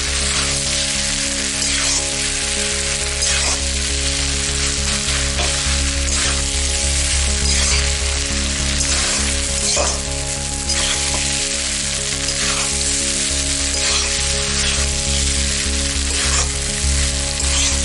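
Noodles sizzling in a hot metal kadai on high flame, with a spatula scraping and tossing them about once a second.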